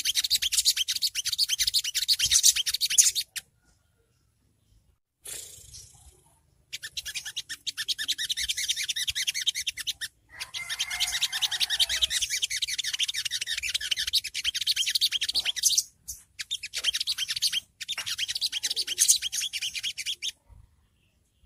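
Olive-backed sunbird (songgo ontong) singing its rapid, high-pitched twittering 'ngriwik' song. The song comes in runs of a few seconds broken by short pauses, with a longer pause about three seconds in.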